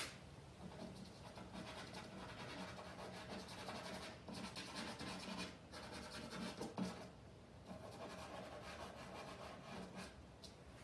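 A stick of charcoal scratching and rubbing across stretched canvas in short drawing strokes, with brief pauses between runs of strokes.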